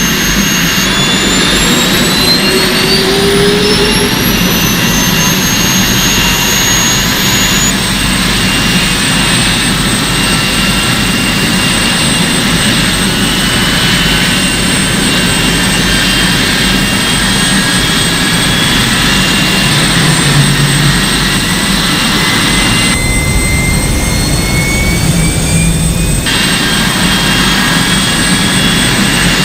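Jet engine running loud and steady, its high turbine whine rising in pitch over the first several seconds and then holding. The sound changes abruptly a few times, as at edits.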